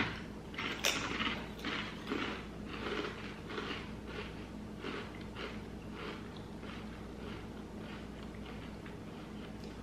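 Crunching of wavy potato chips being bitten and chewed: a quick run of crisp crunches, several a second, that grow fainter and die away about seven seconds in.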